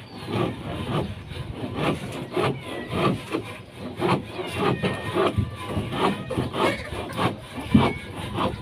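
Hand saw cutting wood in steady back-and-forth strokes, about two to three a second, with faint birds chirping.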